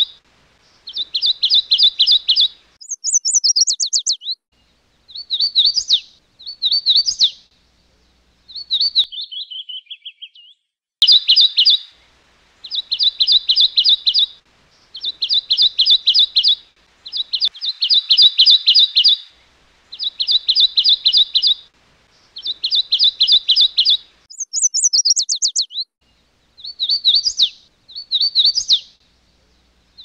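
A warbler singing: a string of high, even trills, each one to two seconds long, repeated with short gaps. A few higher, quicker down-slurred phrases and one falling run of notes break in between them.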